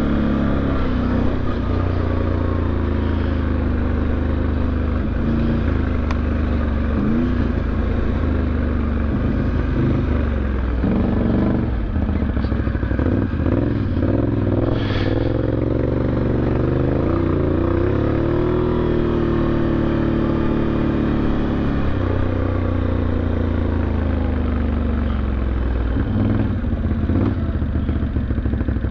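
ATV engine running steadily while riding, its pitch falling and rising in the middle as the machine slows and picks up speed again.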